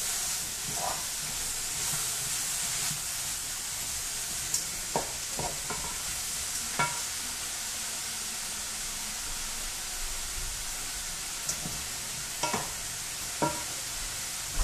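Chicken gizzards and onion sizzling steadily as they fry in a pot, stirred with a wooden spoon, with a few short knocks scattered through.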